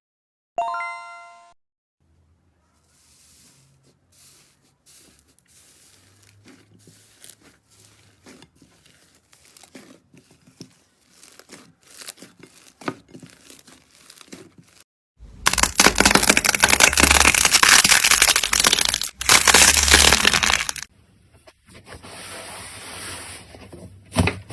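Slime being played with: after a short chime, a long run of small sticky clicks and pops, then several seconds of loud, dense crackling typical of crunchy slime being squeezed, with a short break partway through.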